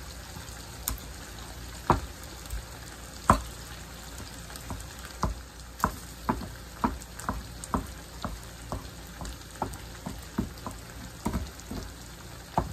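Stone pestle knocking and scraping against a volcanic-rock molcajete while mashing avocado for guacamole: a few separate knocks at first, then about two a second from roughly halfway through. Under it, a steady sizzle of diced pork frying in a pan.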